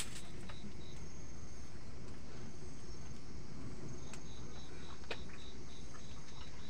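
Crickets chirping in a steady, even high pulse, over low rumbling handling noise, with one sharp click about five seconds in.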